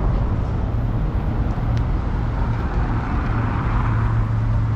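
City street traffic: a steady wash of passing road vehicles with a low rumble, swelling briefly about three seconds in as a vehicle goes by.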